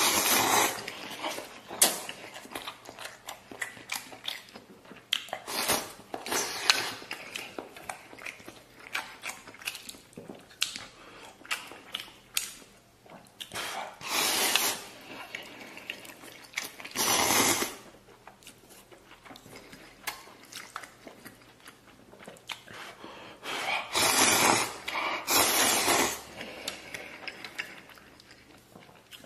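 A person eating tomato beef instant noodles close to the microphone: many short chewing and mouth clicks, with a few longer slurps.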